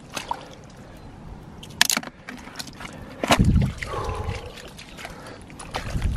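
Steel-capped boots squelching through soft, wet mangrove mud, with scattered clicks and knocks and one heavier thud about three and a half seconds in.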